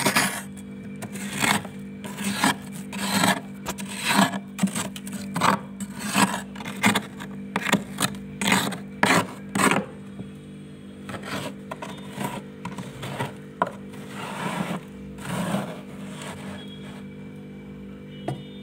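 Metal spoon scraping thick frost off the inside of a freezer, in short rasping strokes a little under two a second, which thin out and grow fainter after about ten seconds. A steady low hum runs underneath.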